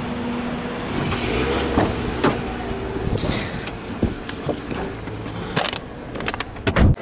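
A car door pulled shut from inside, closing with a heavy low thump near the end, after a few lighter knocks and rustles as someone gets into the seat.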